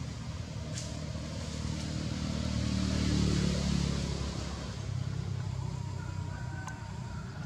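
A motor vehicle's engine running in the background as a low steady hum, growing louder about three seconds in as it passes, then easing off.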